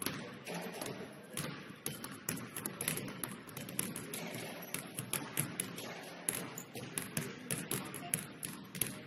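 Several basketballs being dribbled on a hardwood gym floor: a quick, irregular stream of overlapping bounces.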